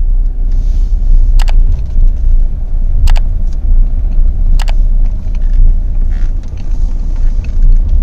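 Tata Nexon's 1.5-litre four-cylinder diesel engine running, heard from inside the cabin as a steady low rumble. Three sharp clicks come about a second and a half apart in the first half.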